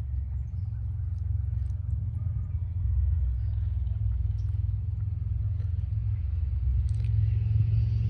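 Wind buffeting the microphone: a steady, fluttering low rumble that gets a little louder about three seconds in.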